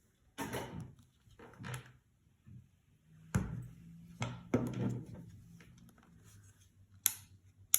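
Knocks and sharp plastic clicks from a nail drill's handpiece and control box being handled and reseated, with a few dull knocks in the first five seconds and three crisp clicks near the end.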